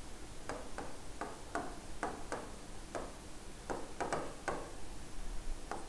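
Marker pen writing on a whiteboard: a run of short, irregular strokes and taps, about two or three a second.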